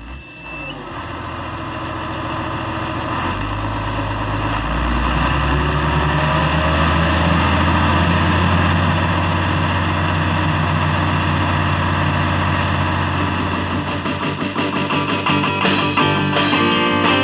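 Intro music: a sustained, distorted electric-guitar sound fades up over several seconds over low bass notes that change in steps, and a rhythmic strummed beat comes in near the end.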